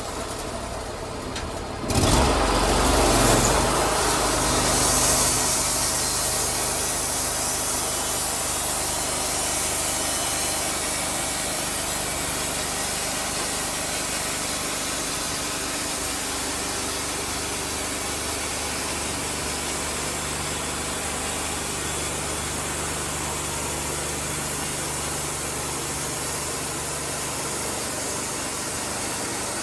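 Sawmill engine running steadily. About two seconds in, the sound grows suddenly louder with a hissing rush that fades over the next few seconds.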